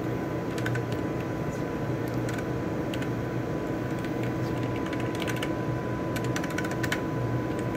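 Computer keyboard keys clicking in scattered short bursts of typing, over a steady room hum with a faint constant high tone.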